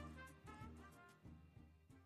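Instrumental backing music with brass, fading out.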